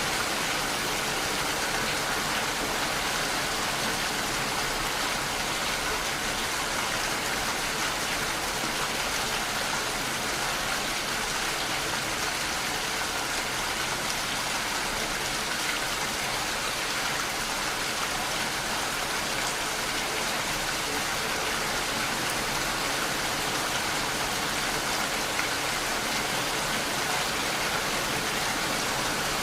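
Steady rain falling, an even, unbroken hiss of drops without pause.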